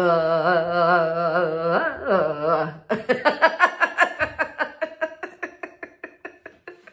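A man's deliberate laughter-yoga laugh: a held, wavering vocal tone for about three seconds, then a rapid run of 'ha-ha-ha' pulses, about six a second, that fade out and stop near the end.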